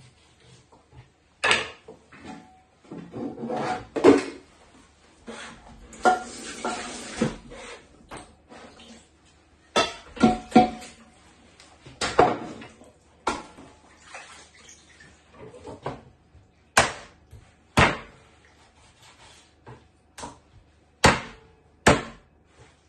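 Kitchen knife chopping raw chicken on a wooden cutting board: about ten sharp knocks, spaced irregularly. Between them come clattering and rustling from a bowl being handled.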